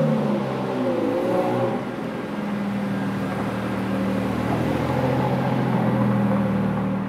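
Sports car engine running as the car drives up a ramp and past, its pitch dipping and rising again about a second in, then settling into a steady low rumble.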